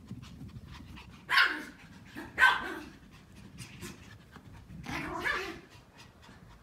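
Pomeranians barking while they chase each other in play. There are two short barks about a second apart, then a longer bark about five seconds in.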